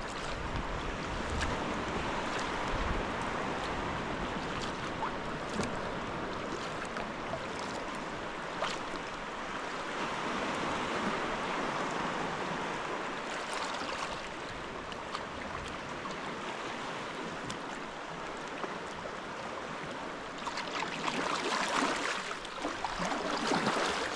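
Sea water lapping and splashing around a paddled sea kayak, with small splashes and drips ticking through it. The wash grows louder near the end.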